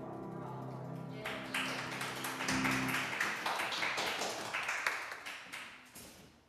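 The last chord of an electric keyboard held and fading, while a small audience breaks into applause about a second in; the clapping dies away near the end.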